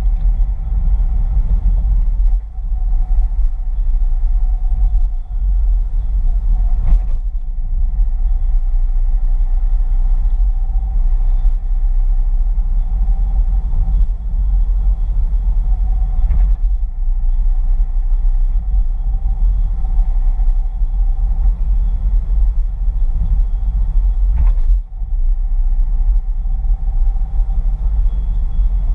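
Car driving along, heard from inside the cabin: a steady low rumble of engine and road, with three short knocks spread through.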